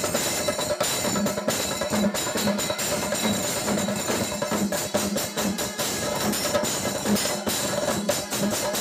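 Kerala temple percussion ensemble: many chenda drums played hard with sticks in a fast, dense, unbroken rhythm, with brass horns (kombu) and bright metallic ringing layered over it.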